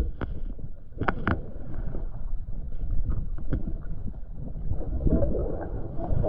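Muffled underwater sound of hands clearing weeds from a boat's propeller and shaft: a low rumble of water movement with scattered clicks and knocks, a short cluster of them about a second in.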